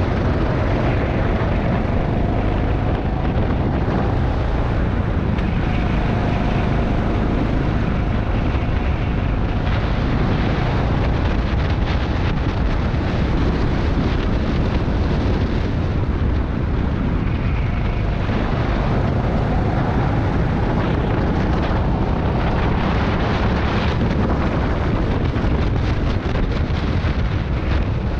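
Rental go-kart engine running under throttle, its note rising and falling through the corners, under heavy wind buffeting on the kart-mounted camera's microphone.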